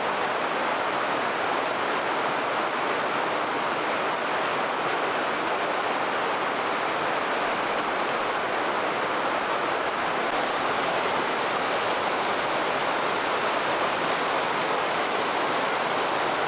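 Rocky mountain stream rushing over boulders in whitewater rapids: a steady, loud hiss of running water.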